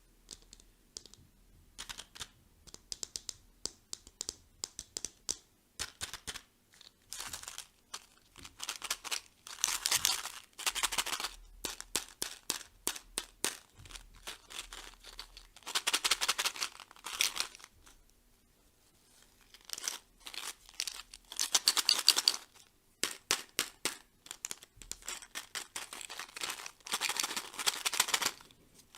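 Plastic candy wrappers crinkling and tearing as toy candy is unwrapped: a run of sharp crackles and clicks, with several louder stretches of dense rustling.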